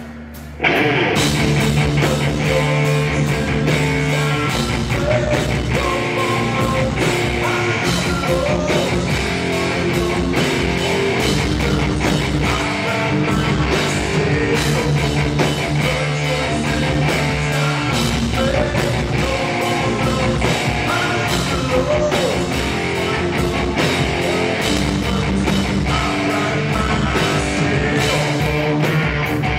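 Rock band playing live: distorted electric guitar, bass guitar and drum kit, with a male voice singing. A short break right at the start, then the full band comes back in about half a second in and plays on.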